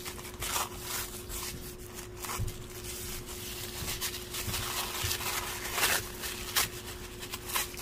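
Pink tissue paper rustling and crinkling in irregular bursts as it is unrolled and pulled off a wrapped pen.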